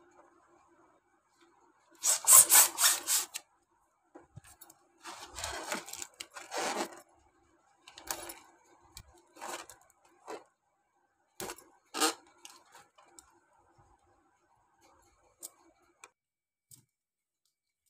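Small plastic hand pump inflating a mini latex balloon: a quick run of about seven pumping strokes about two seconds in, the loudest part, and another run a few seconds later. Then latex rubbing and handling noises with a few sharp clicks as the balloon is worked on.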